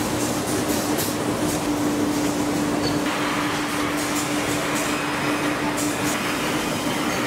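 Steady machinery noise from a tennis ball factory floor, with a constant hum and scattered light clicks.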